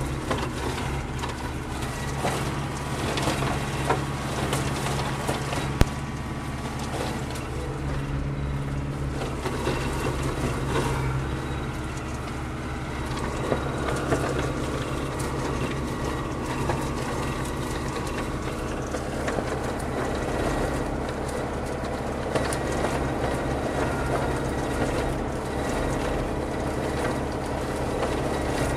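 Tractor engine running steadily while driving a homemade brush crusher that chops willow and pine saplings, with irregular sharp cracks and snaps of wood being shredded; heard from inside the cab.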